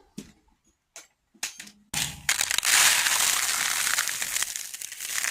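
Bird seed mix pouring into a feeder, a dense rattling hiss that starts about two seconds in after a few faint clicks.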